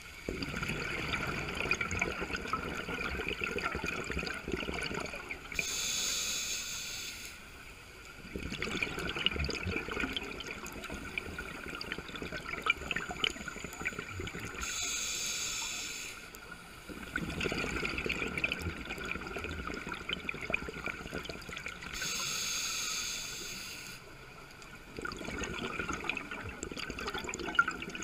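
Scuba diver breathing through a regulator, heard underwater. A steady cycle about every eight seconds: a short hiss of inhalation, then a longer rush and crackle of exhaled bubbles, then a brief lull.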